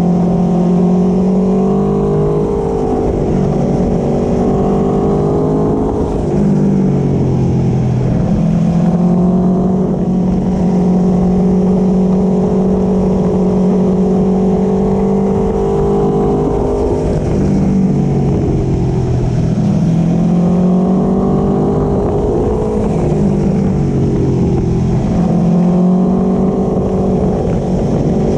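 2017 Aprilia Tuono V4 Factory's V4 engine through an Akrapovic slip-on exhaust, running on the road at fairly steady revs. Its pitch dips and climbs back up several times, about 2, 7, 17, 20 and 25 seconds in.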